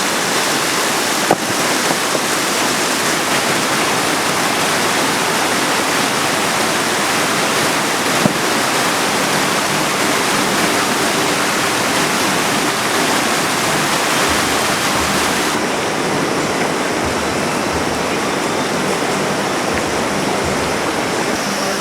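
Mountain river water rushing steadily over rocks, a loud even wash of sound, with a couple of faint knocks.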